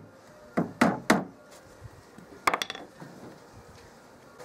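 Hammer knocking a wooden stretcher into the freshly glued dovetail joints of a chest-of-drawers carcass: three sharp taps about a quarter second apart, then a quick cluster of two or three more about two and a half seconds in.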